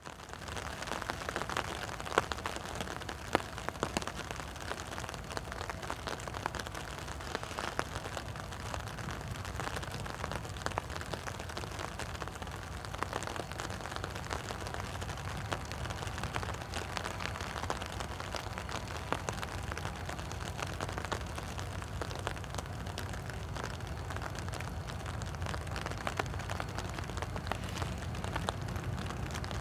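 Steady rain falling, with many small drop ticks, over the low rumble of approaching diesel locomotives that grows a little stronger toward the end.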